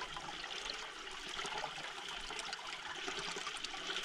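Water pouring steadily from a PVC inlet pipe into a homemade hydrocyclone made from an old Weber barbecue bowl, splashing and swirling in the bowl.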